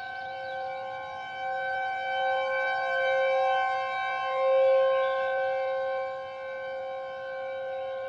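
Federal Signal outdoor warning siren sounding a steady alert tone, several pitches held together as one chord. It swells and fades in loudness.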